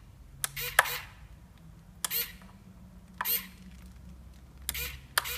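Small RC hobby servo whirring in about six short bursts as it swings its arm to and fro, driven from a switch on the radio transmitter.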